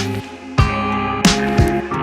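Background music: plucked guitar over a steady beat, with a drum hit about every two-thirds of a second.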